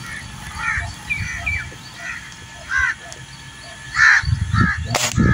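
Crows cawing repeatedly, a series of short harsh calls, the loudest about four seconds in. A sharp crack near the end.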